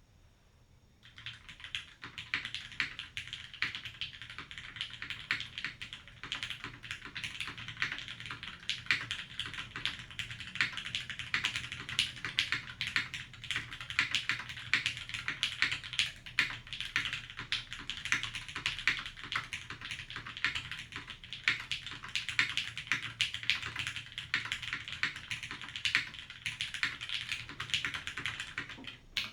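Fast, continuous typing on a Keycult No.2 TKL gasket-mount mechanical keyboard with an aluminium plate, lubed and filmed Gateron Tangerine R1 linear switches and GMK keycaps. The keystrokes start about a second in.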